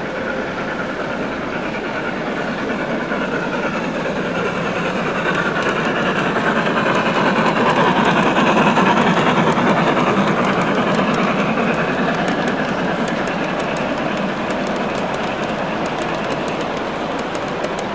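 Large-scale model train, a steam locomotive pulling freight cars, rolling along the track close by. The rumble of wheels on rails swells to its loudest about eight seconds in as the engine and cars pass, then eases off. There are a few sharp clicks near the end.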